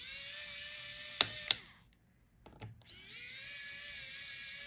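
Small electric precision screwdriver backing out the laptop heatsink's screws: two short runs of motor whine, each rising as it spins up and then holding steady, with a gap between. Two sharp clicks come during the first run.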